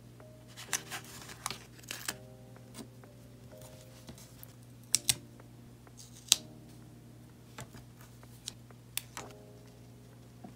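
Scattered light clicks and taps of tweezers and fingertips handling paper stickers on a binder page, with a sharp double click about five seconds in and another sharp click about a second later.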